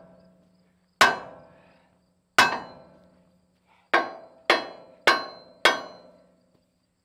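Sledgehammer striking the truck's steel rear bumper frame six times, each blow ringing briefly. Two blows come about a second and a half apart, then four quicker ones about half a second apart.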